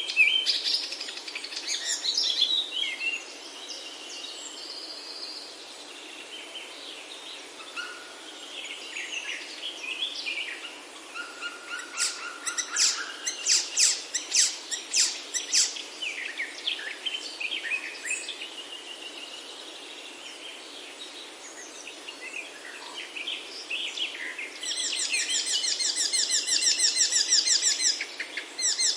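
Several songbirds singing and calling over one another, with varied chirps, whistles and short phrases. Near the end comes a long, fast trill.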